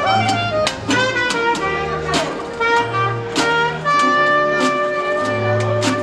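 Small traditional jazz band playing live: clarinet and trumpet carrying the melody, with long held notes, over steady banjo strumming and plucked upright bass.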